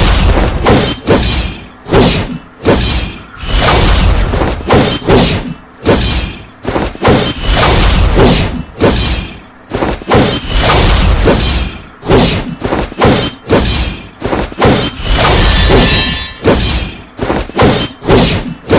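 Loud, repeated thuds and crashes, about one or two a second, each with a deep low end and a short noisy tail. About sixteen seconds in, a brief high-pitched squeal rises over them.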